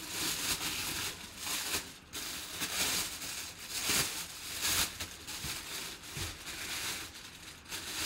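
Thin plastic bag crinkling in irregular bursts as hands pull it off a full-size football helmet.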